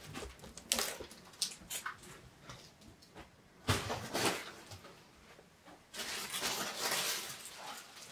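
Cardboard box and polystyrene packing rustling, scraping and knocking while a heavy case is worked out of its box, with a loud rustling burst about four seconds in and a longer one near the end.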